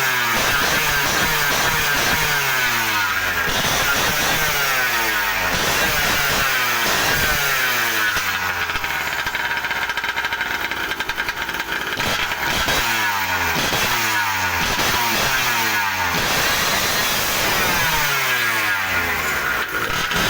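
Small 63cc two-stroke scooter engine with a reed valve and 16 mm carburettor, revved over and over: each throttle blip sends the pitch up, then it slides back down as the revs fall. The revs settle lower for a few seconds in the middle, then the blipping picks up again.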